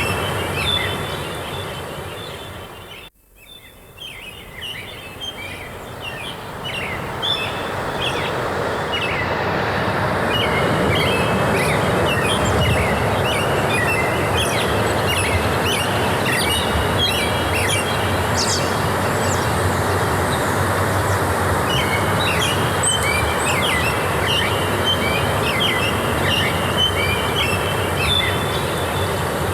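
Many small birds chirping over a steady rushing noise of forest ambience. Everything cuts out abruptly about three seconds in, then fades back up over the next several seconds.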